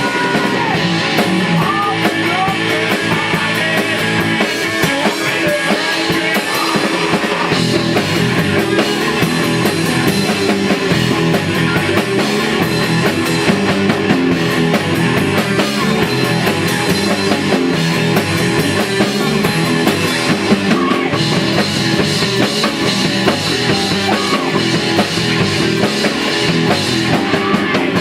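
A rock band rehearsing, playing a song at full volume with electric guitar and drum kit.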